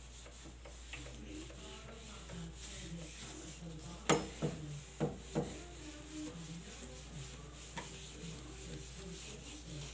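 A cloth scrubbing a wooden door, a steady rubbing, with a few sharp knocks between about four and five and a half seconds in.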